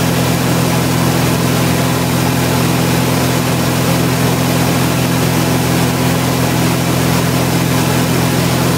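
Four-cylinder carburetted light-aircraft piston engine and propeller droning steadily in cruise, heard inside the cabin, at about 2560 rpm and 74% power with the mixture leaned lean of peak.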